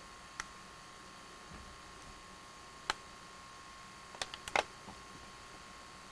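Steady faint hiss and hum of a camcorder recording, broken by sharp handling clicks: one about half a second in, a louder one near three seconds, and a quick run of four or five clicks just past four seconds.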